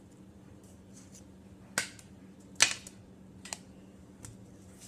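Three sharp snaps of trading cards being flicked and handled, a little under a second apart, the middle one loudest, with a few faint ticks of cards between them.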